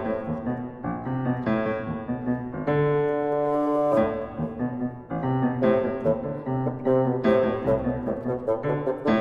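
Chamber music for oboe, bassoon and piano, with the piano playing quick, short notes. A held chord comes about three seconds in, and the notes grow busier in the second half.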